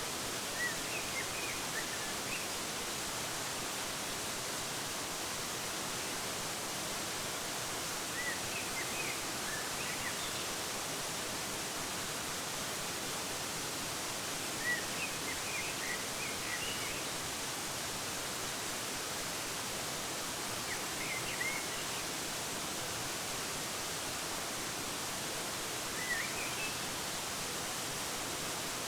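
Waterfall's steady splashing noise, with a small bird chirping in short clusters of a few quick high notes about every five or six seconds.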